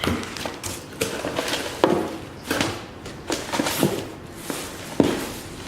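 Items and packaging being handled in a cardboard box: irregular rustles, clicks and light knocks, the sharpest at about two seconds and five seconds in.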